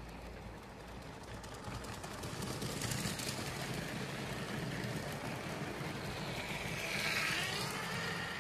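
Electric Lego train motors whirring and wheels running on plastic track as trains pass close by, loudest about three seconds in and again with a brief sliding whine about seven seconds in.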